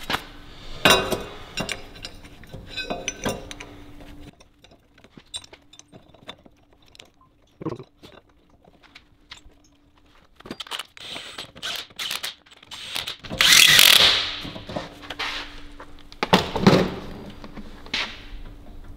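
Workshop handling noises of metal tools and parts: scattered clicks, knocks and clanks, with a louder rushing, scraping noise about two-thirds of the way through and another loud knock-and-rush shortly after.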